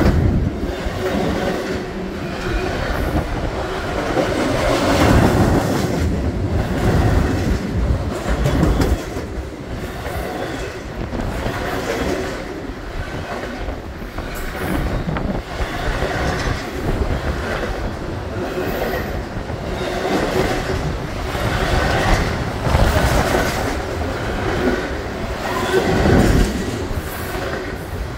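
CSX freight train's double-stack container cars rolling past underneath, a continuous rumble of steel wheels on rail with repeated clickety-clack as the wheels pass over the track.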